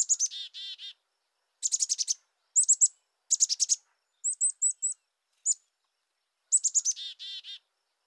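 Black-capped chickadee giving its 'chick-a-dee' call: a quick run of high notes followed by a few lower, repeated 'dee' notes, once at the start and again near the end. In between come short clusters of rapid high notes.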